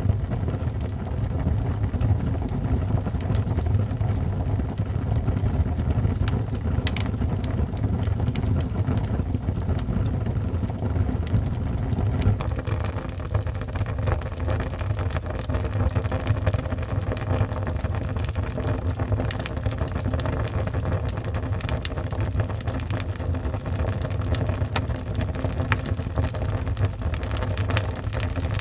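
Wood fire burning in a fireplace: a steady low rumble of flames with scattered crackles and pops, which come more often from about twelve seconds in.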